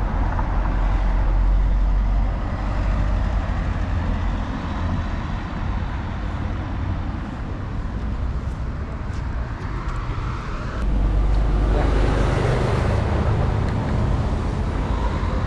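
Street traffic: a steady rumble of cars on the road, with one vehicle passing louder about two-thirds of the way through.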